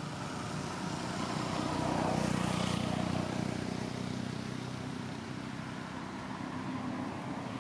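A motor vehicle's engine hum passing by off-camera, swelling to its loudest about two seconds in and then slowly fading.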